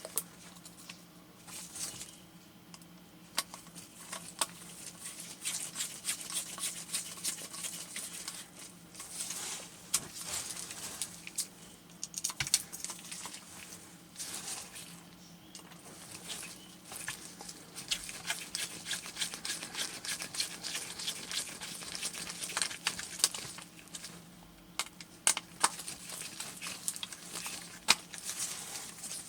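Small Phillips screwdriver turning tiny screws into a radio display's circuit board: a run of faint scratching and small clicks, with a few sharper ticks, over a low steady hum.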